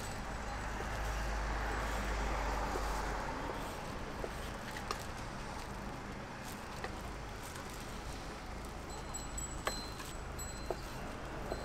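Street background noise with a steady low rumble that swells for a couple of seconds near the start, broken by scattered light clicks and clinks, with a faint high ringing near the end.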